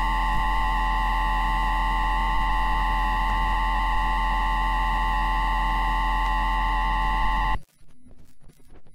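Inductor pickup of a JR East E2-1000 Series Shinkansen's 3-level IGBT VVVF traction inverter during braking, in asynchronous unipolar PWM mode: a steady electronic whine of several fixed tones over a low hum and hiss. It cuts off suddenly about seven and a half seconds in, as the inverter stops switching, leaving only faint crackle.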